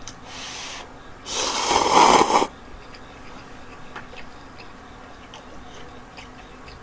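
Instant cup ramen noodles being slurped: a short, softer slurp just after the start, then a louder, longer slurp about a second and a half in.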